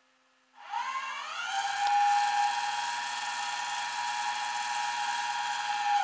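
Flatbed tow truck's engine-driven hydraulic pump running as the rollback's control levers are worked: a high mechanical whine that rises in pitch about half a second in and then holds steady over a low engine hum.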